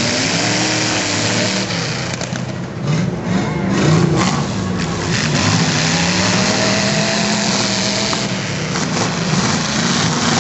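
Demolition derby cars' engines running and revving up and down over a steady rumble. A few sharp knocks come about two to four seconds in, the loudest near four seconds.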